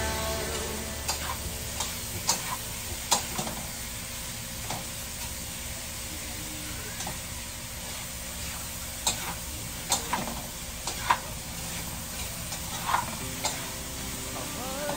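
Food sizzling as it fries in a pan on a gas stove, with a cooking utensil scraping and knocking against the pan every second or so as it is stirred.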